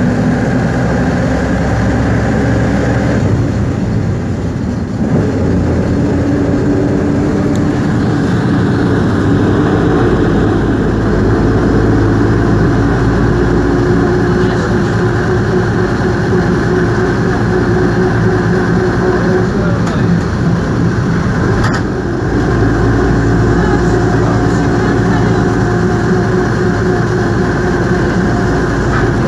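Skoda 706RT six-cylinder diesel of a 1977 Jelcz 272MEX city bus, heard from inside the cabin while the bus is driving. The engine note changes pitch, dipping briefly about four seconds in and again about twenty-two seconds in.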